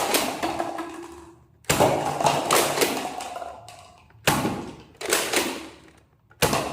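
Toy gun being worked and fired: a run of sudden clattering bursts, three of them, each starting sharply and fading over a second or so with small clicks inside.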